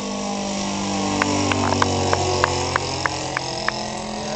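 A small fixed-wing UAV's motor and propeller drone overhead in a fly-by, growing louder toward the middle, then fading as the pitch drops slightly. Through the middle come about ten sharp clicks in a row, three or four a second.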